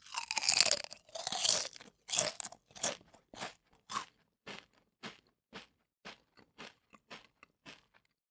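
Crunchy food being bitten and chewed: loud, long crunches for the first two seconds, then about two chews a second that grow shorter and quieter as the mouthful breaks down.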